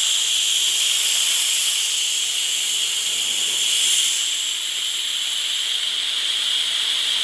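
Loud, steady hiss of compressed air in a pneumatic drum oil dispenser, whose air supply pressurises the closed 200-litre drum to push the liquid out through the hose. The hiss swells briefly about four seconds in, then settles a little quieter.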